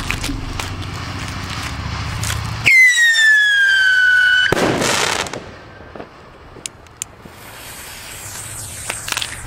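A firework whistler goes off: a loud whistle falling in pitch for nearly two seconds, ended by a bang with crackle. A few small pops follow later.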